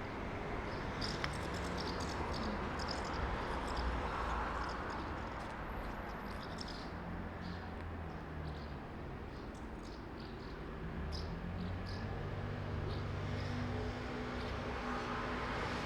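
Roadside town ambience: a steady low rumble of traffic with engine hum, a little louder near the end, and scattered short high chirps throughout.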